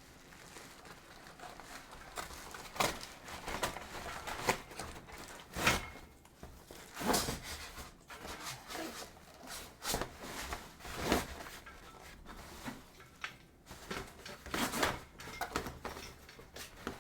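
Cardboard box being handled as a metal keyboard stand is worked out of it: irregular scrapes, rustles and knocks, with several sharper bumps spread throughout.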